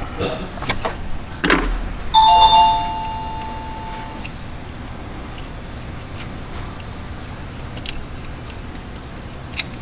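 Plastic clicks and rattles of a cooling-fan wiring connector being worked loose by hand, then, about two seconds in, a bright two-pitched ringing chime that fades out over about two seconds. A few faint ticks follow over a steady low hum.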